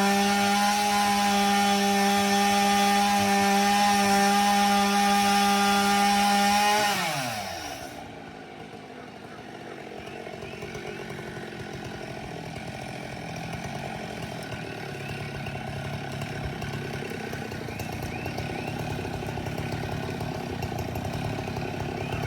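Chainsaw running flat out at a steady high pitch, then the throttle is let off about seven seconds in and the pitch slides down. After that comes a quieter, low engine sound that slowly grows louder.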